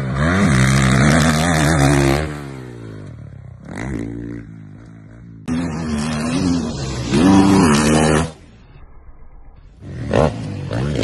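Dirt bike engines revving hard, the pitch climbing and dropping with the throttle. It comes in several separate passes: loud at the start, again from about the middle for a few seconds, and once more near the end, with sudden cuts between them.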